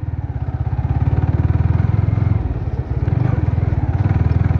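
Yamaha R15 V3's single-cylinder engine and exhaust running at low road speed, a steady fast pulsing note with a brief drop in level a little past halfway.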